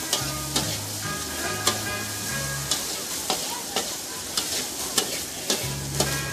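Pad Thai noodles stir-fried in a steel wok: a metal ladle clinks and scrapes against the pan about twice a second over a steady sizzle.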